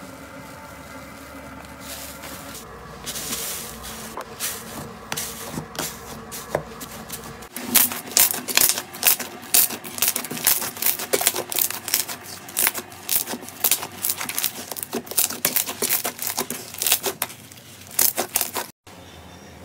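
Slime being squeezed and pressed by hand: soft squishing at first, then from about seven seconds in a dense run of sharp crackling and popping clicks.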